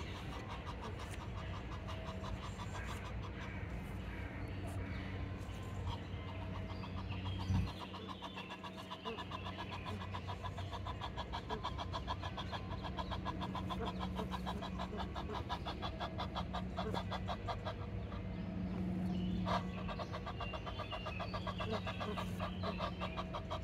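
Egyptian geese calling: long runs of rapid, rasping pulses, over a steady low hum.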